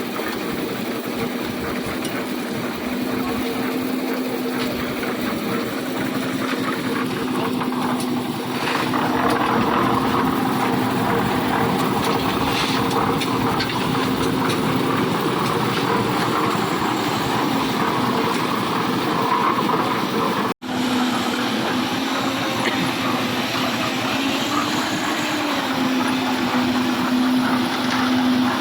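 Engine of a concrete mixer machine running steadily with a constant hum. A rougher churning noise joins about eight seconds in and carries on. The sound cuts out for an instant about twenty seconds in.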